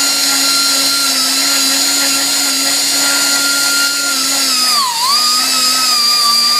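High-speed grinder spinning a white bristle disc, running at a steady high whine. About five seconds in, the pitch sags briefly and then wavers as the disc is floated over an aluminum cylinder head's gasket surface to clean off old gasket material.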